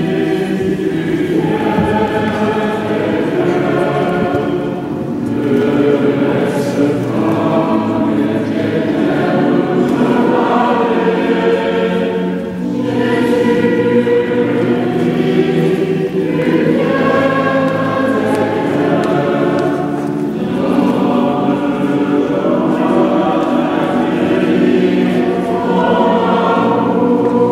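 A choir singing a hymn in long sustained phrases, with brief pauses between them.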